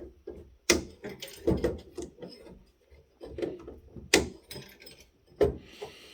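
Sharp clicks, taps and knocks of metal hardware being handled as a heatsink is worked off a network switch's circuit board, with a short scrape near the end.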